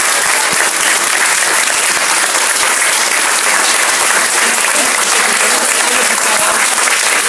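Steady applause, many hands clapping at once.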